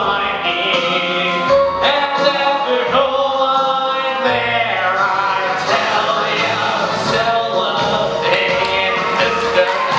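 A man singing a show tune solo with instrumental accompaniment.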